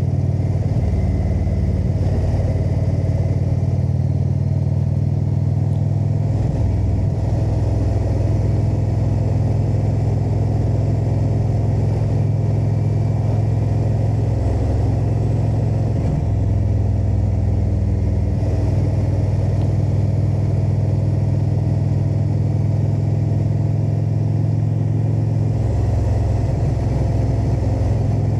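Indian V-twin motorcycle engine running at cruising speed, its low exhaust note stepping up and down several times as the rider rolls the throttle and changes gear.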